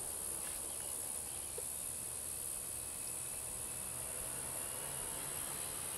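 Steady high-pitched hiss with a faint low hum underneath and no distinct event: background noise of the narration recording.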